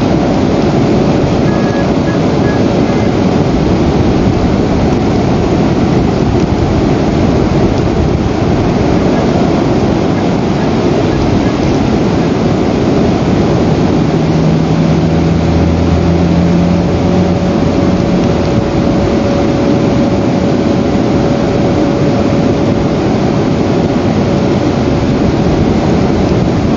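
Steady, loud rushing noise picked up by an outdoor nest camera's microphone, with a faint steady whine over it. A low hum comes in for a few seconds about halfway through.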